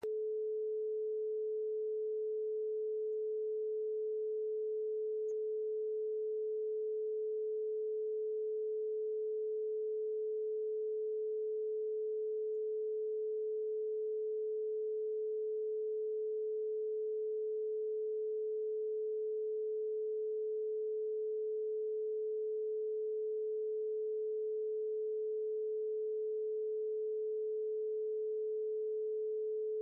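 A single steady, unwavering pure electronic tone pitched at about 434 Hz: the synthesized base tone of an isochronic brainwave-entrainment track.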